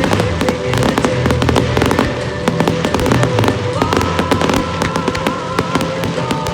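A fireworks display going off in rapid bangs and crackles, many a second, over music with held notes.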